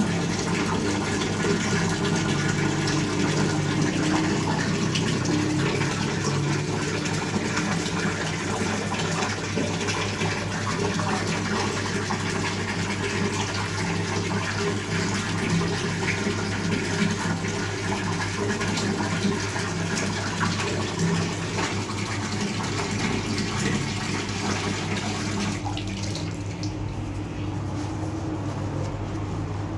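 Water pouring in a stream into a dough mixer's large metal bowl, a steady splashing fill, with a steady low hum underneath. The pouring eases off near the end.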